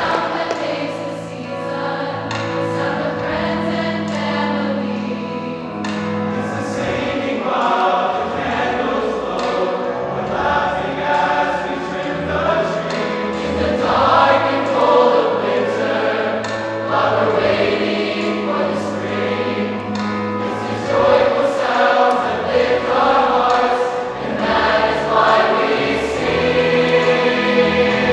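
A large mixed choir of men's and women's voices singing together in phrases, growing louder about halfway through.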